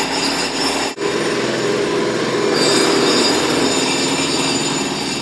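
Road-work jackhammer hammering continuously with a fast rattle, cutting out for an instant about a second in and starting again.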